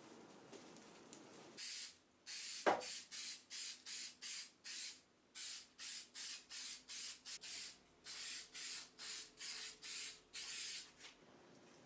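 A spray nozzle hissing in many short, evenly repeated bursts, about two to three a second, with one sharp click between them near the start.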